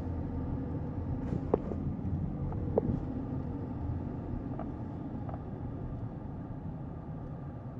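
Steady low rumble of a vehicle, with a few faint short clicks.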